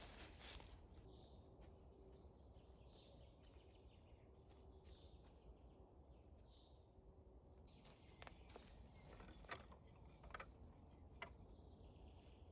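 Faint small birds chirping in spring woodland, with a few sharp isolated clicks or cracks in the second half.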